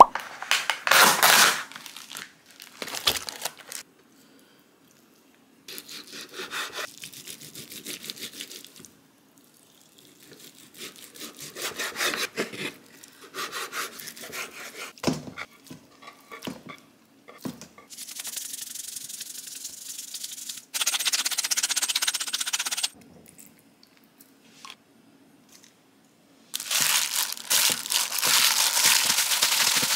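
Kitchen food-prep sounds: a run of quick repeated cutting or scraping strokes, rubbing and handling noises, and several stretches of steady hiss lasting a few seconds each.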